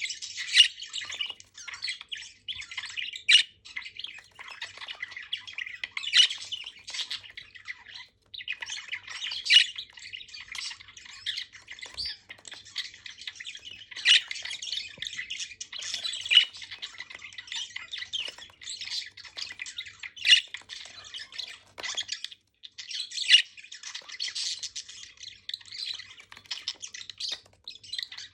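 Several budgerigars (budgies) chattering and warbling together, a dense run of chirps with sharper, louder squawks every few seconds and a brief pause about eight seconds in.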